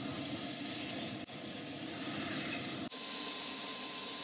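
Black Hawk helicopter turbines and rotor running: a steady rushing noise with a thin high whine, changing abruptly twice, about one and three seconds in.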